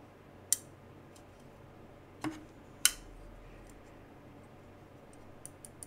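Chris Reeve Sebenza 31 folding knife being handled: three sharp clicks in the first three seconds, then a few faint ticks near the end. The lanyard spacer spins loose in the titanium handle now that the lanyard has been cut off, and rattles.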